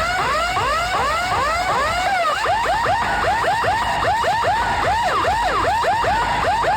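Loud electronic siren-like warble: a tone that sweeps up in pitch over and over, slower for the first two seconds and then about three sweeps a second, with a few rising-and-falling swoops midway.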